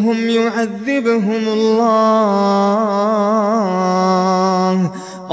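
Quran recitation chanted in a melodic tajweed style, with long drawn-out held notes and a wavering ornament near the middle. The voice breaks off shortly before the end.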